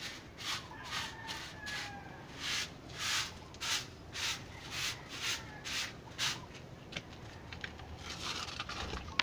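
Stiff stick broom of thin midribs (walis tingting) sweeping concrete, brisk swishing strokes about two a second that stop about six seconds in.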